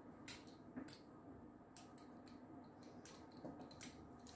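Pizza cutter wheel rolling through soft dough on a wooden board: a few faint, short clicks and light scrapes.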